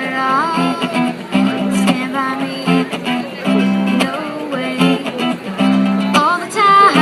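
Live song: acoustic guitar strummed in a steady rhythm with a singer's voice over it, the sung line gliding between notes about half a second in and again near the end.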